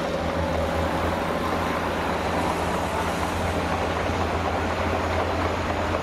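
Dump truck's diesel engine running steadily with a low, even hum while it tips its load of sand from the raised body.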